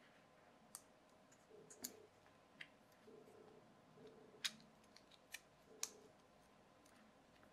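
Faint handling with about seven small, sharp clicks and taps as the plastic body, bearing and weights of a DIY LED fidget spinner kit are pressed and fitted together by hand; the loudest click comes about four and a half seconds in.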